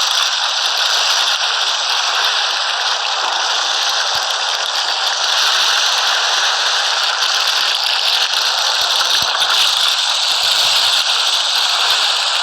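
A carpet-cleaning machine running steadily on the carpet: an even, continuous rushing noise with a faint steady whine.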